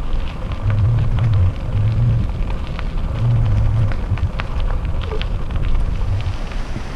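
Trek 8.5 DS bicycle's tyres rolling over a rough, debris-strewn trail with a steady scatter of small sharp crackles and ticks, under a low wind rumble on the camera's microphone that surges in several gusts.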